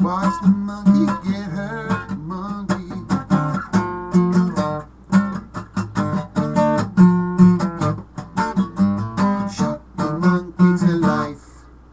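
Acoustic guitar strummed in a steady rhythm of chords, breaking off shortly before the end.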